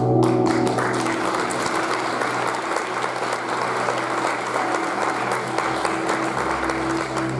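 Audience applauding, swelling up about a second in, with stage music playing on underneath.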